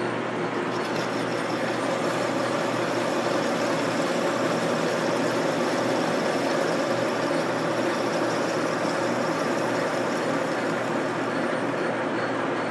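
1944 Sidney 16-inch engine lathe running steadily at raised spindle speed, a constant mechanical hum with a steady tone in it, while facing the end of a piece of pipe.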